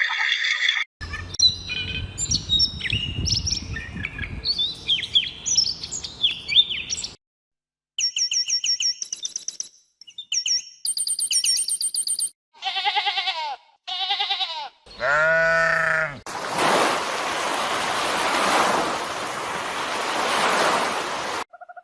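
A run of different animal calls in quick succession: busy twittering bird calls, then high chirps, then a few pitched calls rich in overtones, ending in about five seconds of steady hiss.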